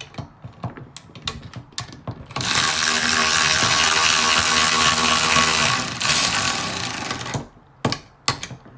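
Cordless electric ratchets running at full speed, backing out fasteners in a race. A few light clicks of handling, then the motors start about two and a half seconds in with a loud, steady whir, run for about five seconds and stop, followed by a few more clicks.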